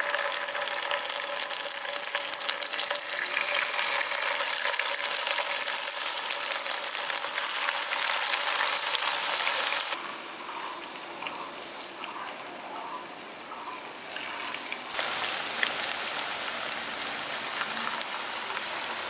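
Sooji (semolina) pakoda batter deep-frying in hot refined oil in a kadai: a steady, dense crackling sizzle. It drops in level about halfway through and comes back up a few seconds later.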